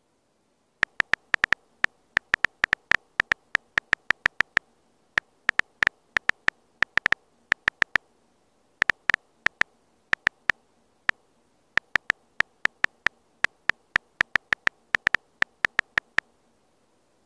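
Key-press clicks of a phone's on-screen keyboard, one short click per tapped key, in quick irregular runs of typing with brief pauses. The clicks stop about a second before the end.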